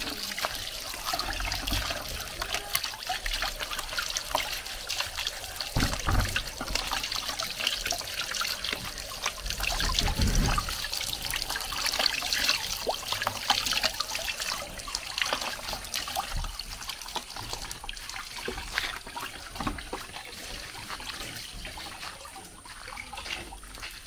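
Water trickling and splashing, with light clicks throughout and a few dull knocks about six and ten seconds in.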